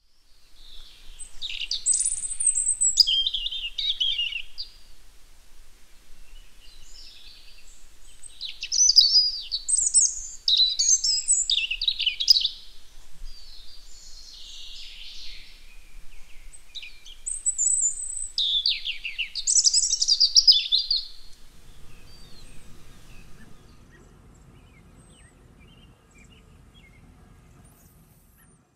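Songbird singing, in phrases of quick high chirps and trills a few seconds apart. The song dies away a little over two-thirds of the way through, leaving only a faint low hum.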